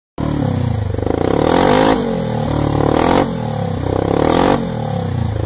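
A vehicle engine accelerating through the gears: three rising pulls, each dropping back in pitch at a shift, about two, three and four and a half seconds in, then running on more steadily.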